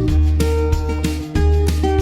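Background music led by strummed guitar, with a steady beat and a strong bass line.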